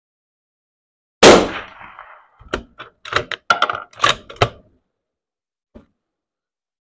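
A single loud .308 Winchester bolt-action rifle shot about a second in, with a short echo trailing off. It is followed by a quick run of metallic clacks as the bolt is worked to eject the spent case and chamber the next round, then one faint click.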